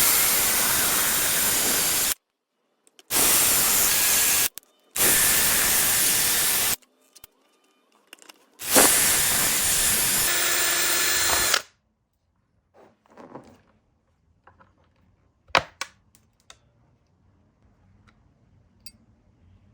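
Power drill drilling out a motorcycle front-fender rivet. It runs in four steady bursts of about two to three seconds each with short pauses between, then stops. A few faint clicks and knocks follow.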